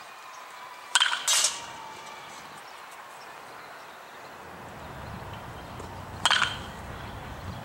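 Sharp, ringing cracks of a baseball bat striking a ball: two close together about a second in, and one more near the end. A low rumble of wind on the microphone comes in during the second half.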